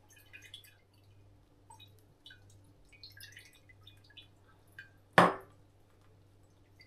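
Small drips and light clinks of liquid and glass while kombucha is being made, with one sharp knock a little after five seconds in.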